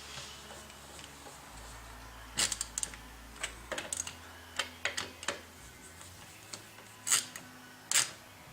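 Hand tools and parts being handled during wheel reassembly: a dozen or so irregular sharp clicks and knocks, the loudest about two and a half seconds in and twice near the end.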